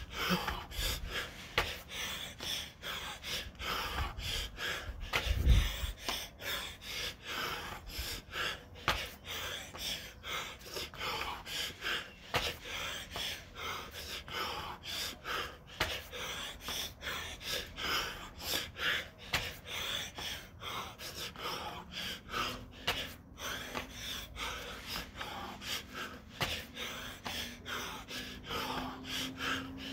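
A man breathing hard and fast in rhythmic gasps, worn out more than five minutes into a set of burpees. A single low thump comes about five seconds in.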